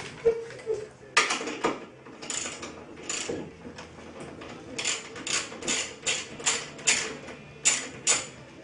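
Ratchet wrench clicking in short strokes as the nuts holding the front strut's top mount are backed off, the clicks coming about two to three a second in the second half.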